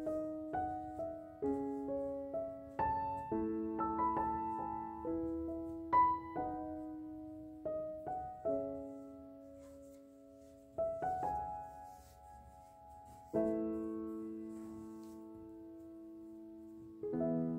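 Background music: solo piano playing a gentle melody over chords. The notes grow sparser about halfway through, with long held chords near the end.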